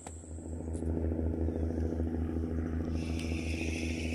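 Johnson 10 hp outboard motor running under way, a steady drone with an even low throb that builds over the first second. A higher hiss joins about three seconds in.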